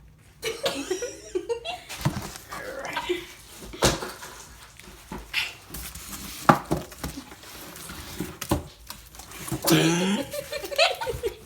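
Handling noises: a series of sharp knocks and clicks as objects are moved and set down, with short stretches of a person's voice near the start and again near the end.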